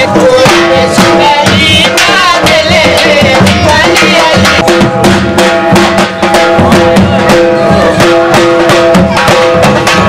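Dhol drums beating a steady dance rhythm, loud and continuous, with a melodic line playing over the drumming.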